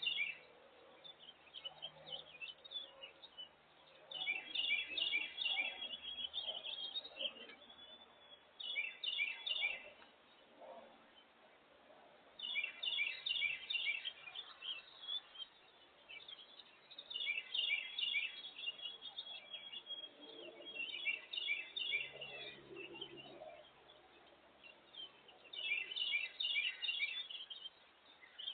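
A songbird singing, repeating short phrases of rapid high notes, each phrase a second or two long, one every few seconds.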